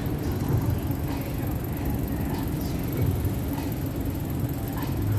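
Steady low rumble of city traffic noise, with faint, indistinct voices of people nearby.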